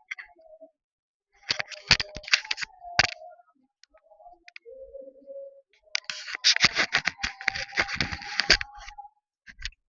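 Two bursts of rapid clicking and rattling: a short one about a second and a half in, and a longer one from about six seconds in.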